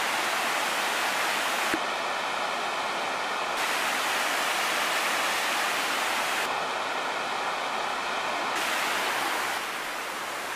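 Elephant Falls waterfall pouring down a rock face into a pool: a steady rushing hiss of falling water, a little quieter near the end.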